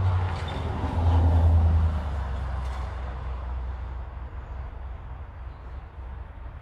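A passing motor vehicle's low engine rumble, loudest about a second in and then fading steadily away.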